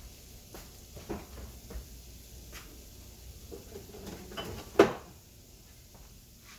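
Kitchen clatter of things being put away: a series of light knocks and clicks, with one loud sharp knock a little before five seconds in.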